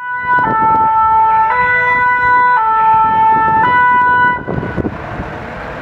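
Fire engine's French two-tone siren (pin-pon), alternating between two pitches about once a second, loud. It cuts off about four seconds in, leaving the truck's engine running as it pulls in.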